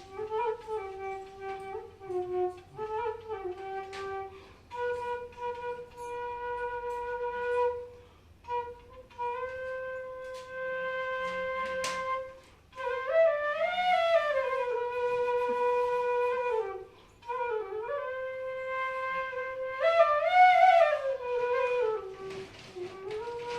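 Bansuri, the Indian bamboo flute, playing a slow melody: long held notes joined by smooth slides between pitches.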